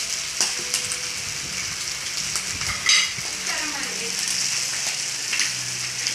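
Slices of meat sizzling steadily on an electric griddle. Chopsticks click against the plate a few times, loudest about three seconds in.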